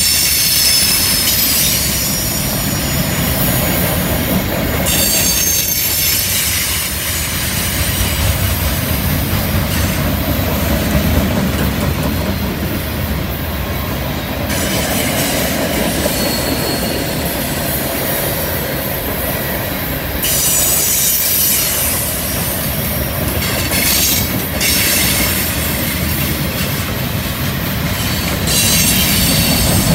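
Freight cars rolling past on a curve: a steady rumble of steel wheels on rail, with high-pitched wheel flange squeal that comes and goes several times.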